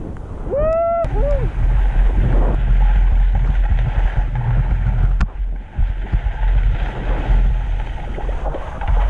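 Wind buffeting the action camera's microphone with a heavy rumble while skiing downhill, and skis hissing over the snow. About half a second in there is a brief two-part whoop from a skier, rising then falling in pitch.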